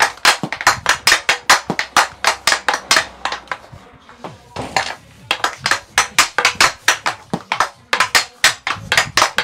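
A hockey stick blade knocking a golf ball back and forth in fast stickhandling on a plastic dryland board. Rapid sharp clicks come about four to five a second, with a brief break about four seconds in.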